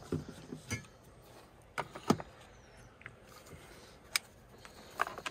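A handful of sharp plastic clicks and knocks as a Keurig single-serve coffee maker is loaded: the lid handle is lifted and pressed shut, and a mug is set on the drip tray.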